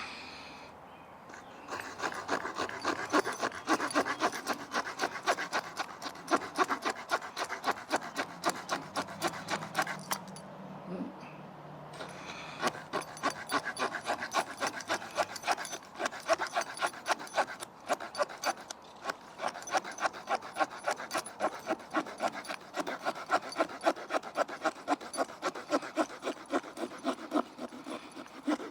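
Small folding saw blade of a Victorinox Ranger Swiss Army knife sawing through a stick of wood in quick, rhythmic back-and-forth strokes, with a short pause about ten seconds in.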